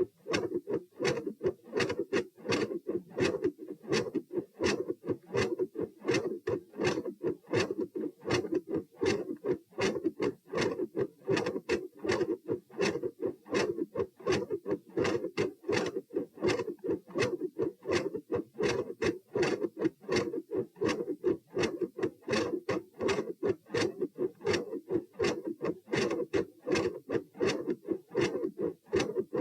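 Heart sounds recorded over the chest at the pulmonic area, beating in a steady, regular rhythm of repeated short thuds. Each cycle has a third sound after the second heart sound (S2), which is questioned as a possible S3.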